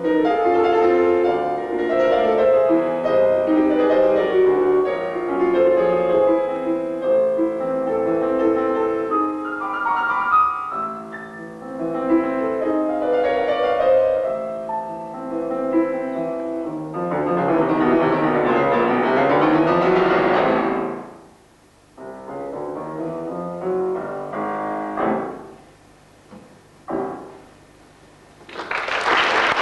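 Solo piano piece on a Petrof concert grand: a flowing melody, then a loud, dense passage, then a few separate closing chords with pauses between them. Applause breaks out just before the end.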